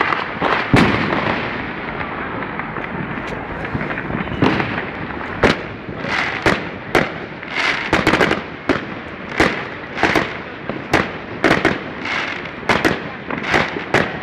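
Fireworks going off: a dense crackle and rumble of many fireworks with one sharp bang about a second in, then a regular run of aerial shell bursts, about two bangs a second, from the middle on.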